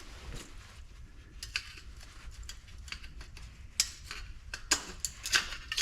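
Scattered light metallic clicks and clinks of tools on the aluminum parts of a large light fixture being taken apart, growing louder and more frequent near the end.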